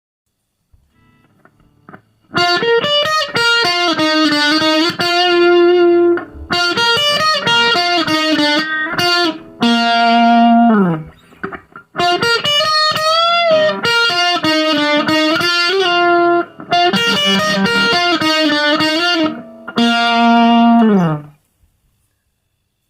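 Electric guitar played through a SubZero SNOWSTORM mini distortion pedal on its normal setting: a riff of sustained notes in phrases with brief gaps, starting a couple of seconds in. There is a note bent and wavered partway through, and slides down in pitch near the middle and at the end.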